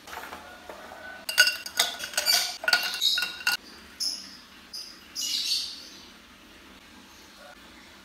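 Ice cubes dropped one after another into a tall glass tumbler, a run of sharp, ringing glass clinks over the first few seconds. Then milk is poured from a carton over the ice, a short splashing pour.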